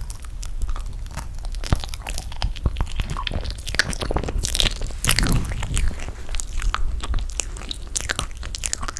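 Close-miked chewing of toasted marshmallow, with many small, sharp, irregular mouth clicks.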